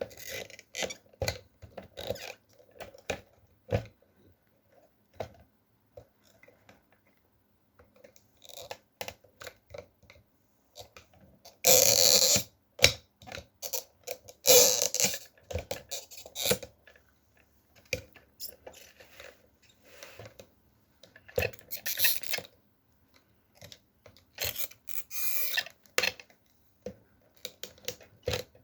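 Plastic tabs and housing of a car's in-tank fuel pump assembly being pried apart and handled: scattered irregular clicks and rubbing noises, with a few louder scrapes about a second long around the middle and later on.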